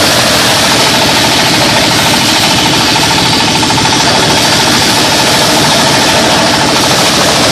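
Corn sheller machine driven by an 8 HP diesel engine, running steadily. The engine knocks in a rapid beat, mixed with the machine's metallic rattle.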